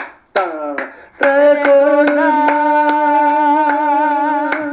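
A woman singing a cappella: a short falling phrase, then from about a second in one long held note with a slight waver. Hand claps keep time about three a second.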